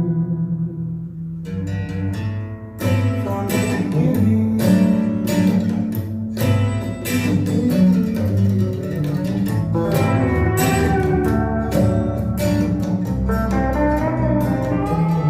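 Guitar-led music with a strong bass line played back through a pair of IKEA Eneby speakers set up in stereo; it starts sparse and fills out about three seconds in.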